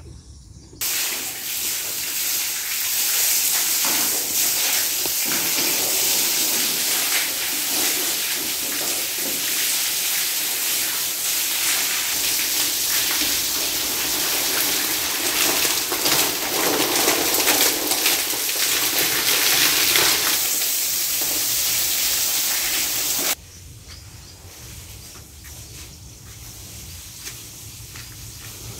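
Steady rushing hiss of water that starts suddenly and cuts off suddenly about 23 seconds in, leaving a much quieter background.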